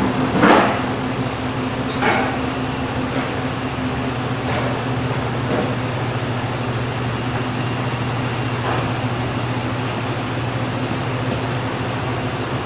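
Steady low hum of commercial kitchen ventilation fans, with a few light knocks, the clearest about half a second in.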